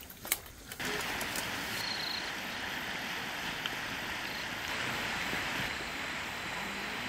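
Steady rush of a river flowing over a stony bed, starting abruptly about a second in. Before it, a couple of light clicks.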